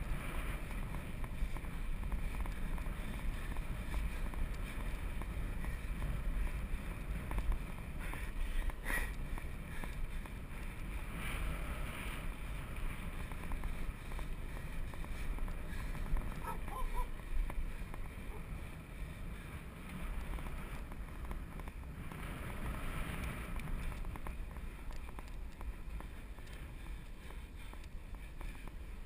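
Wind buffeting the microphone of a GoPro mounted on a moving bicycle, a steady low rumble mixed with the hiss of tyres on pavement and occasional faint knocks.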